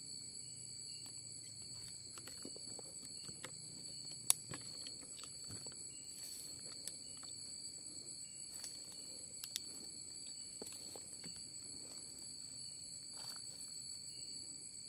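Night insect chorus of a tropical forest: steady, high-pitched trilling in several layers. Over it come scattered crackles of footsteps on leaf litter, and a sharp click about four seconds in, with a smaller one near ten seconds.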